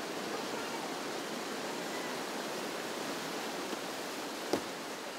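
River whitewater rapids rushing steadily. A single sharp knock sounds about four and a half seconds in.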